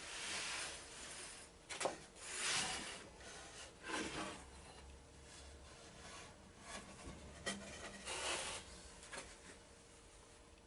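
Wooden crosscut sled being slid off the saw table of a Bosch PPS 7S table saw: several short scrapes of wood rubbing on the table, with a couple of sharp knocks.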